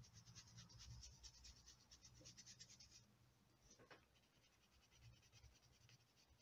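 Faint scratching of a coloured pencil shading over watercolour paper in quick back-and-forth strokes, fading to lighter, sparser strokes about three seconds in.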